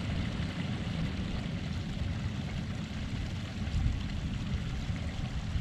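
Creek water running over rocks as a steady rush, with gusts of wind buffeting the microphone as an uneven low rumble.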